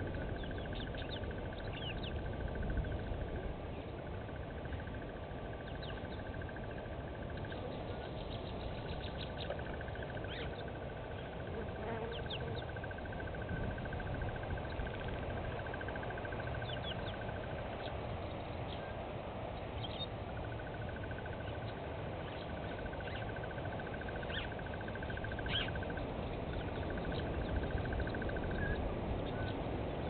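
Small birds giving short, high chirps scattered throughout, over a low steady rumble. A fast pulsing trill repeats in stretches of several seconds, breaking off briefly between them.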